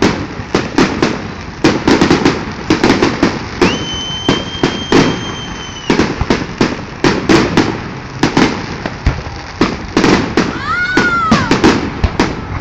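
Aerial fireworks going off in a rapid run of bangs and crackles, with a steady high whistle lasting about two seconds a few seconds in and a shorter whistle that rises and falls near the end.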